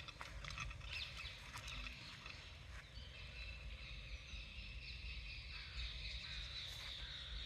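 Faint birds chirping over a steady low outdoor rumble, with a few short chirps in the first couple of seconds.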